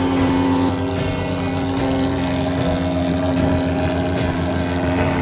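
Portable pulse-jet thermal fogger, a Swingfog SN50 type, running steadily while it blows out insecticide fog.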